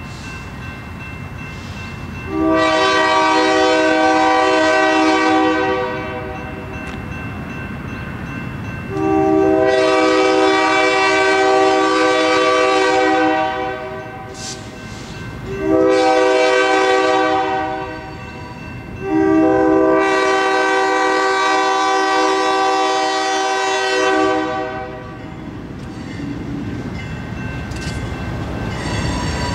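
Locomotive air horn sounding the grade-crossing signal: two long blasts, one short, then one long, each a chord of several notes sounding together. A low train rumble fills the gaps and grows louder toward the end as the train approaches.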